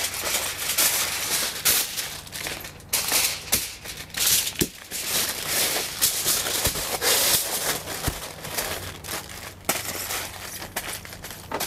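Sheet of aluminium foil crinkling in irregular crackles as it is folded and pressed around a piece of meat.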